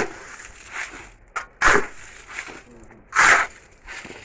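A hand digging tool striking and scraping into dirt and gravel in steady strokes, three of them about a second and a half apart.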